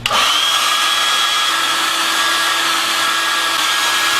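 Handheld hair dryer switched on at the start and then running steadily: a loud rushing blow of air with a steady high whine from its motor.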